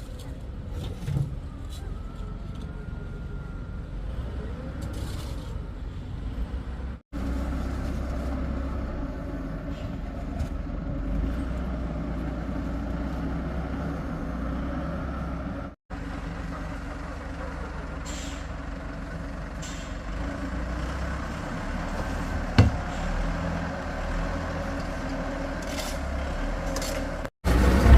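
Diesel engine of heavy construction machinery running steadily under work, broken by three brief gaps, with a single sharp knock near the end.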